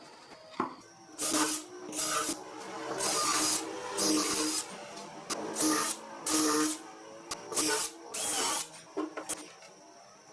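A woodworking tool making a series of short hissing strokes, about eight over ten seconds, with a faint hum under them.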